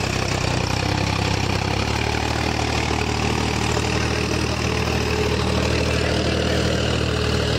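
Mahindra 265 DI tractor's three-cylinder diesel engine running under load as it pulls a heavily loaded trolley through soft soil. The note is steady and shifts slightly in pitch about two seconds in.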